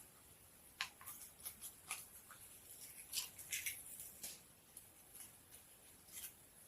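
Faint, irregular clicks and small crinkling taps from handling small objects by hand, a dozen or so scattered over the stretch.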